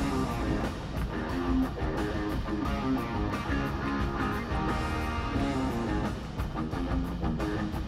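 Live rock band playing at a soundcheck, with guitar to the fore over bass and drums.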